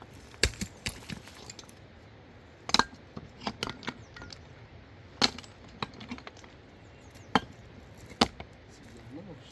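Sharp knocks and clinks of stone being struck and set during dry-stone house building: about a dozen separate hits at uneven intervals.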